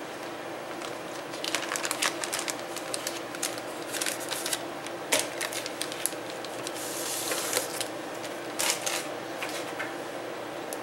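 A bare circuit board being handled in a clear plastic bag: crinkling plastic and sharp clicks and taps of the board on the bench, thickest in the middle and dying away near the end, over a steady background hum.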